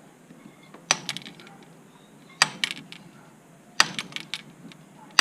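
Hammer striking a manual impact driver: three sharp metallic blows about a second and a half apart, each followed by a short rattle. The driver is being used to break loose a seized, Loctite-locked screw in a roller furler's aluminum drum.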